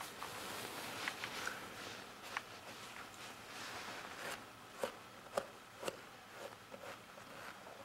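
Knife and gloved hands working at the ear of a skinned lynx head, cutting out the ear cartilage: faint scraping and rustling with scattered small clicks, a few sharper ticks about five to six seconds in.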